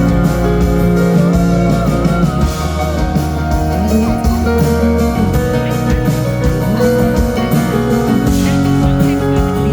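Live acoustic band music led by strummed and plucked guitars over a moving bass line: an instrumental passage with no singing.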